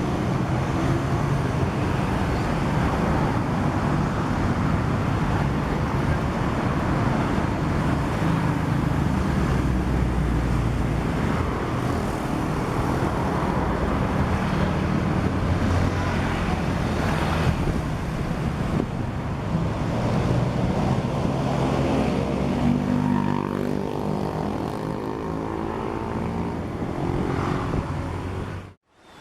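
City street traffic: a steady rumble of engines and tyres from many vehicles, with engine pitches rising and falling as vehicles pass in the latter part. It cuts off suddenly just before the end.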